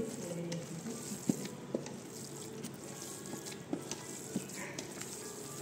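Hand kneading and rubbing crumbled chhena in a steel bowl: a soft, steady rustling with a few light clicks scattered through it.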